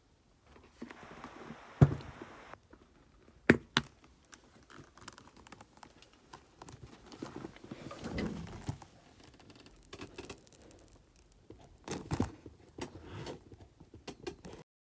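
Small handling noises: sharp clicks and knocks with some rustling, and a brief hiss about a second in. It cuts off suddenly near the end.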